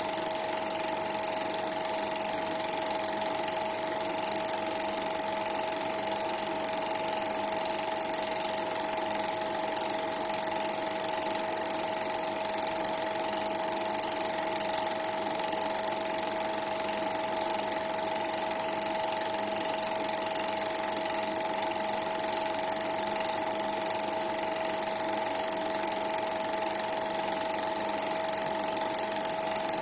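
Cine film projector running: a steady mechanical whir with a constant tone.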